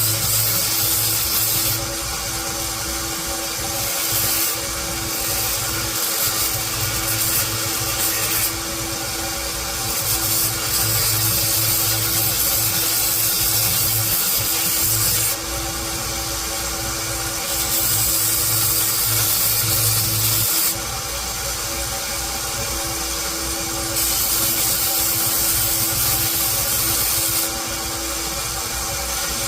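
A power grinder runs steadily while metal is ground in repeated passes. A loud rough hiss comes in and cuts out with each pass, six times, each lasting from about one to six seconds.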